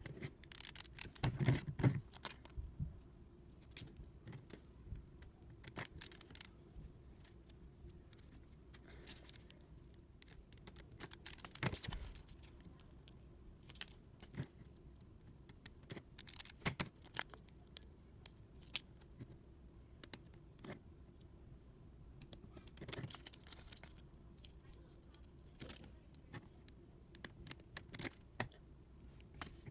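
Irregular small clicks and taps of hands handling a 3D-printed plastic speed cube while stickers are put on it, with a louder cluster of knocks a second or two in.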